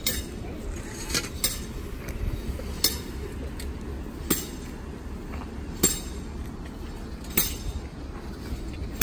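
Metal flagpole ends striking the pavement as walkers use them as staffs: sharp metallic clinks about every second to second and a half, over a low steady rumble.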